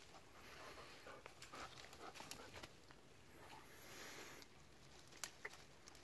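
Faint breathing of a golden retriever as it noses into the undergrowth.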